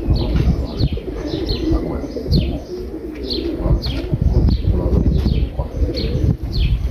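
Domestic pigeons cooing, with many short, falling high chirps repeating over the cooing and a low rumble underneath.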